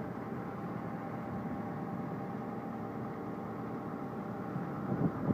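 An engine of heavy machinery running steadily, a constant hum with several fixed tones, with a couple of short knocks near the end.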